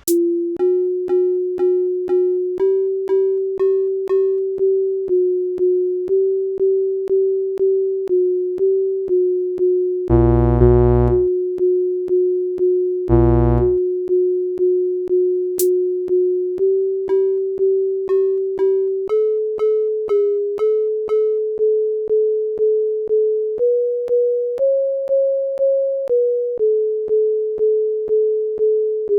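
Synthesized sine-tone data sonification of Bitcoin's October 2020 price pump, with Bollinger Bands mapped to melodic tones: a pure tone re-struck a little under twice a second, stepping up and down in pitch, with occasional higher notes. Two short low bass tones come about ten and thirteen seconds in, and the pitch climbs to its highest near the end before dropping back.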